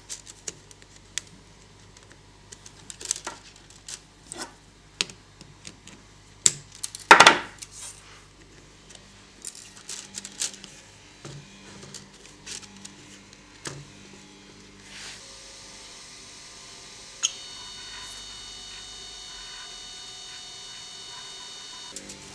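A string of sharp clicks and light clatter from hard plastic and metal parts of an Ultimaker 2+ 3D printer being handled while its filament is changed. About two-thirds of the way through, a steady mechanical whine with several high tones sets in and holds.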